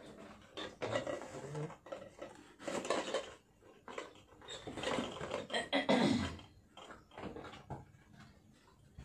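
Jewellery boxes and plastic packets being handled: irregular rustling and knocking with light clinks, in several bursts, the loudest about three seconds in and around five to six seconds in.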